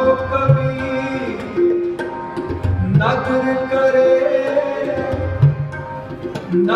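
Kirtan music played on harmonium and tabla: held harmonium notes that step from note to note over a running tabla rhythm, whose bass drum bends in pitch.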